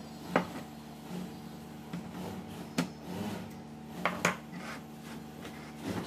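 Several sharp clicks and light knocks of hands handling an opened infrared cooker's plastic housing and control board, over a steady low hum.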